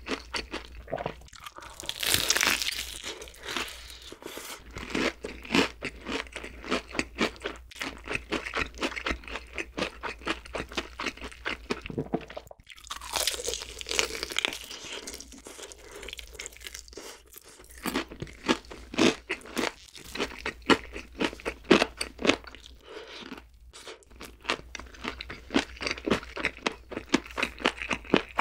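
Close-miked crunching of a crispy fried chicken drumstick: a loud bite about two seconds in and another about thirteen seconds in, each followed by rapid crackling crunches of the batter as it is chewed.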